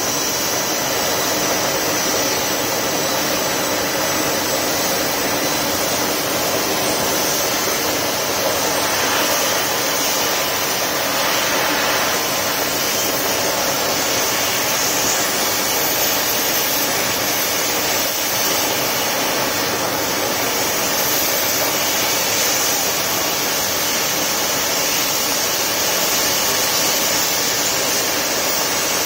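Homemade forced-air barrel wood stove running at full blast: a loud, steady rush of blown air and fire with a faint high whine on top.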